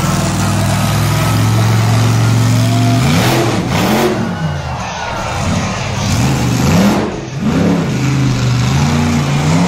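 Monster truck engine running at a steady, loud note, then revved up and down again and again from about three seconds in.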